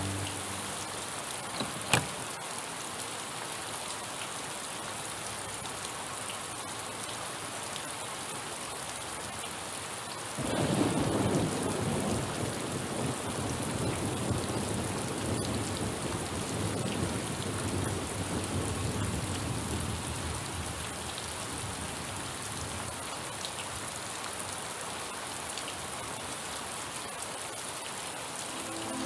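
Steady rain falling, with a long low rumble of thunder rolling in about ten seconds in and slowly dying away. A single sharp click comes about two seconds in.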